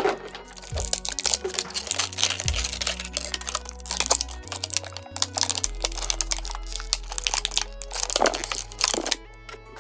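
Clear plastic toy packaging crinkling and crackling in quick, irregular clicks as fingers and fingernails pick and pull it open, over background music with sustained low notes.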